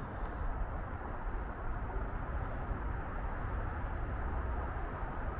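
Steady low rumbling background noise with a soft hiss over it, with no distinct events.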